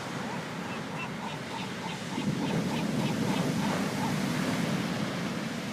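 Ocean surf washing in, a wave swelling up about two seconds in and easing off near the end, with a rapid run of short chirps over it, about five a second, for the first few seconds.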